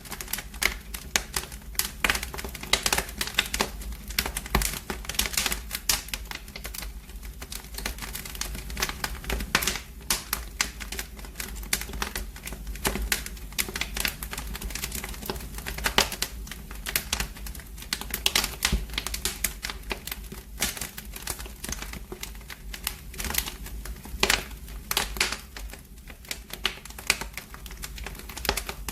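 Wood fire in a fireplace crackling, with dense, irregular pops and snaps of varying loudness over a steady low rumble.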